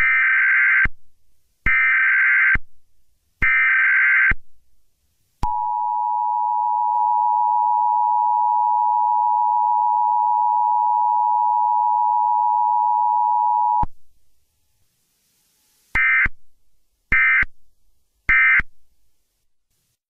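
Loud electronic beep tones: three long beeps about a second apart, then one long steady tone held for about eight seconds that cuts off suddenly, then three short quick beeps near the end.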